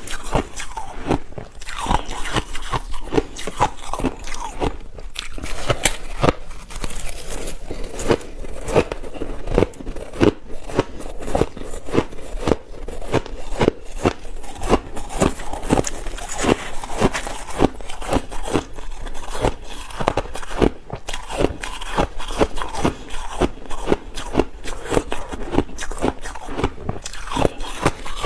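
Ice being bitten and chewed close to the microphone: a dense run of crisp, irregular crunches.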